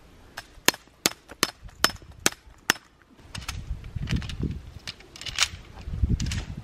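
Hammer driving a tent peg into gravel: about six sharp metallic strikes, roughly two or three a second, over the first three seconds. Then softer rustling and a few light knocks.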